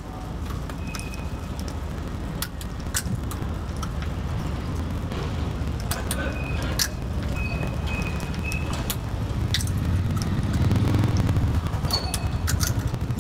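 Street background noise: a steady low traffic rumble that grows louder near the end, with scattered clicks and a few short high beeps.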